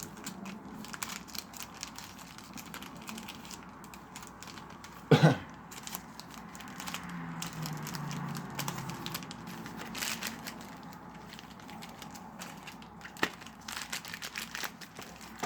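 A Yu-Gi-Oh! booster pack's foil wrapper being torn open and crinkled, with scattered small crackles and clicks as the wrapper and cards are handled. A single short, loud cough comes about five seconds in.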